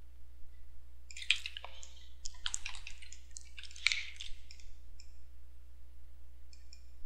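Small clicks and scratchy taps from a computer mouse and desk close to the microphone, in a few quick clusters during the first four seconds and single light ticks later, over a faint steady electrical hum.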